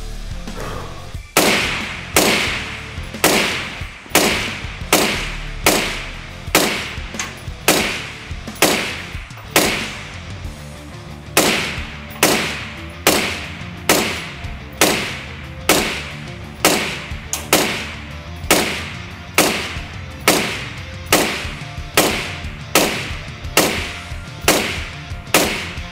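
Suppressed 5.56 NATO rifle with a Troy TPRS Kryptos reflex suppressor firing single shots at a slow, steady pace of about one a second, each crack followed by a short ring-down, with a brief pause about ten seconds in. Background music runs underneath.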